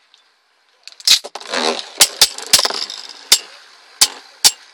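Two plastic Beyblade tops, Dranzer V and Master Seal, launched with a sharp snap about a second in, then spinning and clacking sharply against each other several times.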